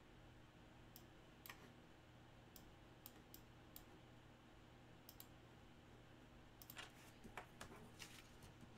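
Near silence with faint, scattered clicks from a computer keyboard and mouse, coming thicker near the end.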